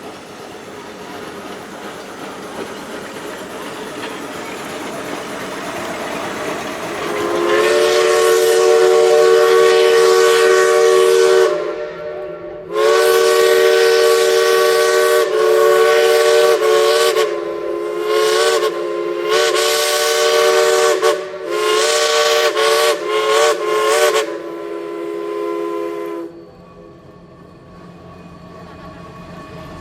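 Steam locomotive whistle, several tones sounding together: one long blast of about four seconds, then after a brief break a string of long and short blasts, over a steadily building steam hiss as the train draws near.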